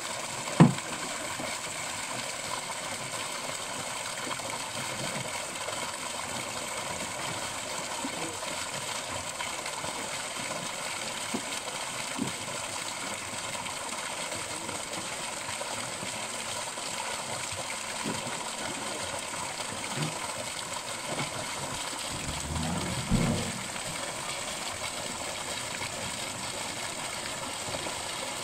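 Steady gush of water pouring from a fish-transport truck's tank outlet and splashing into a lake as fish are released. There is a sharp knock less than a second in and a few dull thumps near the end.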